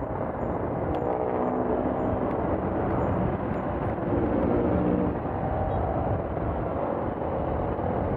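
City road traffic heard from a moving bicycle: a steady rush of noise with the changing hum of passing motor vehicles' engines.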